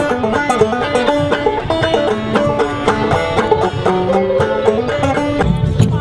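Open-back banjo picked in a quick run of plucked notes, playing a melody. Near the end the sound changes to other music with a heavy low end.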